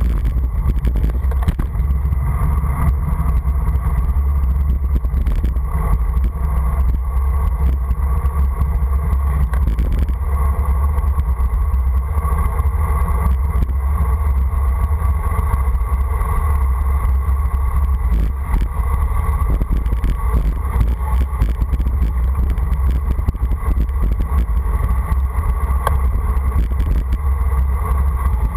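Steady low wind rumble buffeting the microphone of a camera on a fast bicycle descent, mixed with road rumble from the asphalt.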